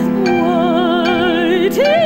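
Operatic singing over an instrumental ensemble: a voice holds a low note with wide vibrato, then slides up about an octave near the end and holds the higher note. A steady chord is sustained underneath.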